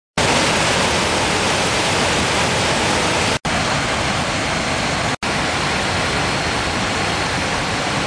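Waterfall water rushing in a steady, even roar, broken by two split-second gaps about three and a half and five seconds in.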